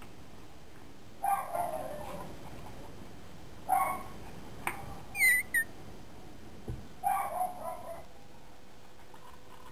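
Boxer puppies playing: three short bursts of puppy barking spaced a few seconds apart, a high squeal twice about five seconds in, and a low thump near the end.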